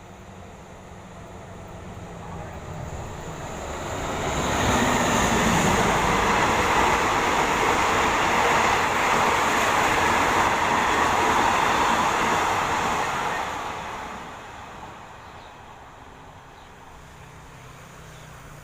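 Diesel-hauled Thai passenger train (rapid train 102) passing close by: its noise builds over about four seconds and the locomotive's low engine note drops in pitch as it goes past. The wheels and carriages then clatter loudly for about nine seconds and die away.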